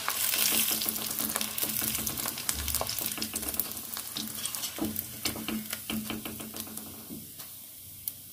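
Poha and sabudana chips deep-frying in hot oil in a kadai, a dense sizzle full of crackles, stirred with a wire skimmer. The sizzle dies down near the end as the chips are lifted out of the oil.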